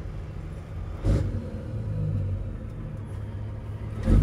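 Semi truck's diesel engine running steadily at a low pitch, with two sharp thumps, one about a second in and one near the end.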